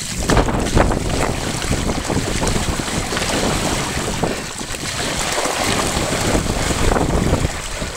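Mountain bike tyres splashing and churning through a muddy, water-filled rut, with wind buffeting the microphone.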